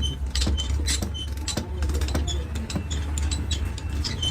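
Workshop machinery running with a steady low hum, under irregular sharp metal clinks, taps and knocks from parts being handled and worked.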